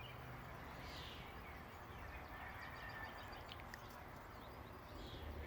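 Quiet outdoor background with a few faint, scattered bird chirps.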